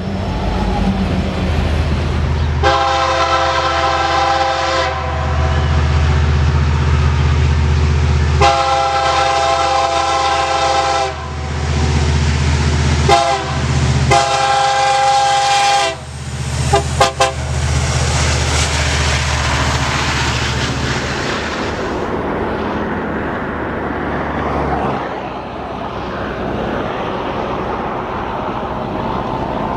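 Train horn sounding several blasts over the low rumble of a passing train: two long blasts, a short one, another long one, then a couple of quick toots. After that the train's rolling noise carries on, and the low rumble fades out near the end.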